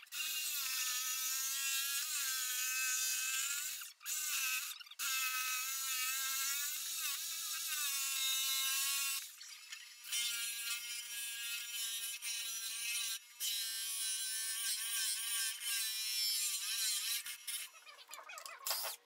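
Electric power tools whining as the rounded top of a pressure-treated pine seat back is cut and shaped. Two stretches of whine dip and rise in pitch as the tool meets the wood, then a steadier whine from a bench disc sander starts about ten seconds in.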